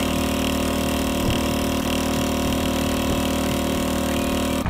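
Fishing boat's engine running steadily at full throttle, an even hum that holds one pitch throughout.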